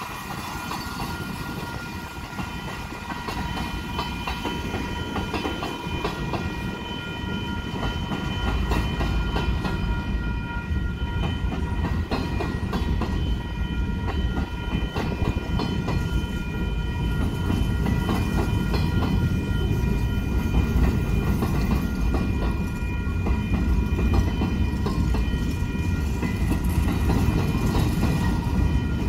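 Freight train's covered hopper and tank cars rolling past, wheels rumbling and clacking over the rail joints, growing louder over the first ten seconds or so. A steady high ringing tone sounds over it throughout.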